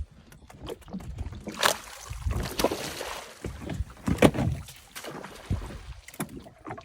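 Water and wind noise aboard a small fishing boat at sea, with irregular rushing splashes, the loudest a little after four seconds in.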